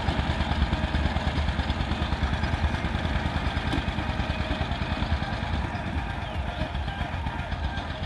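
Old Dongfeng 12-horsepower power tiller's single-cylinder diesel engine running with a rapid, steady beat under ploughing load. It grows gradually fainter in the second half as the tiller moves away.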